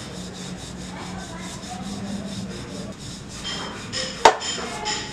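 Wooden rolling pin rolling over a stack of layered dough on a floured counter, a steady rubbing, as the layers are rolled thin into samosa sheets. A single sharp knock about four seconds in.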